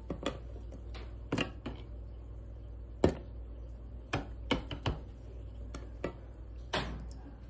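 Scattered light knocks and clinks of a vinegar-soaked, rusty metal trowel being handled, about eight in all, the loudest about three seconds in.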